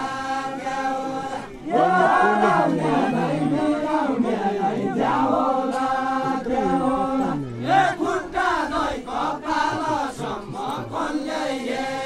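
A group of men singing a Deuda song in chorus, holding long, drawn-out notes. A louder, fuller phrase begins about two seconds in.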